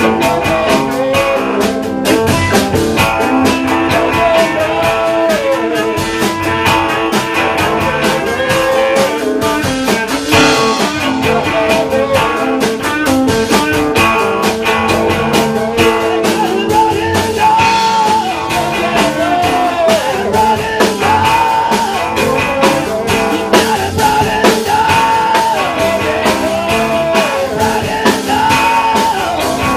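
Rock band playing live: electric guitar and bass guitar over drums, with a wavering melodic lead line on top.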